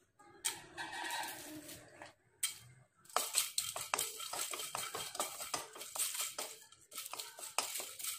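Whole spices rattling as they are dropped into a dry nonstick kadai, then a wooden spatula scraping and knocking them around the pan in quick strokes as they dry-roast.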